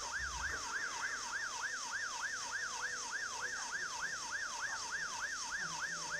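Emergency vehicle siren in a fast yelp: one pitched tone sweeping up and down about four times a second, steady throughout.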